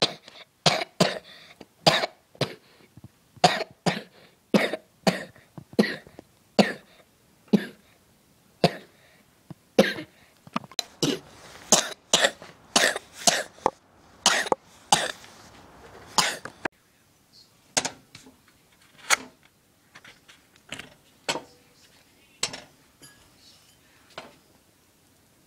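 A person coughing over and over in short, sharp coughs, about one or two a second, for around fifteen seconds; the coughs then grow fainter and further apart.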